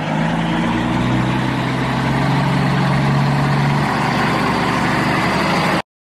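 Heavy dump truck's engine running steadily, with a low hum that changes about four seconds in; the sound starts and cuts off abruptly.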